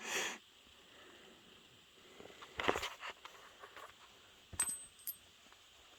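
Quiet hand handling of small pocket items: soft rustling noises, then two light metallic clicks about half a second apart, each with a faint high ring.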